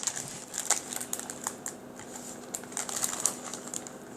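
Plastic bag crinkling and rustling in irregular clicks as it is handled.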